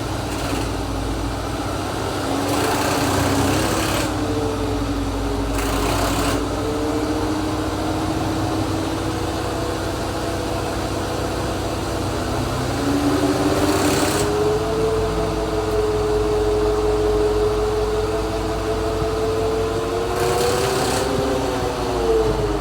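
A Chevy running with a high whine over the engine's low rumble, the unexplained weird noise its owner is trying to trace. The whine holds steady, steps up in pitch about halfway through, then rises and falls near the end; short hissy patches come and go a few times.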